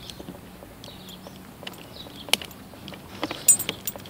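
Plastic wiring harness connector being handled while its locking tabs are squeezed to unplug it: a few sharp plastic clicks and light rattles of the housing and wires, the loudest click about two seconds in and a small cluster near the end.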